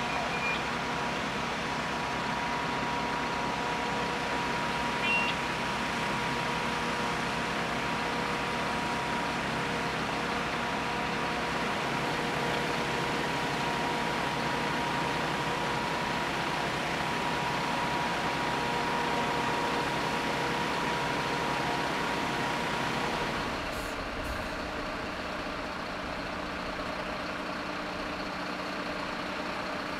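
Machinery running steadily: a constant noise with a steady whine through it. About 24 seconds in, it changes abruptly to a slightly quieter, lower-pitched steady running sound.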